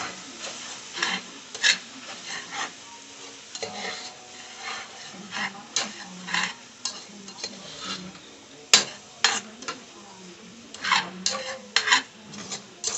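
A spoon stirring sliced okra and vegetables in a pot on the stove, scraping and clacking against the pot at irregular intervals over a low sizzle, with one sharp knock a little past the middle.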